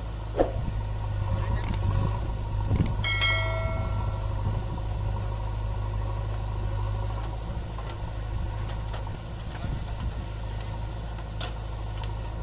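Diesel engines of a JCB backhoe loader and an Ashok Leyland tipper lorry running steadily with a low hum. A few knocks come in the first three seconds, then a brief high-pitched squeal lasting about a second.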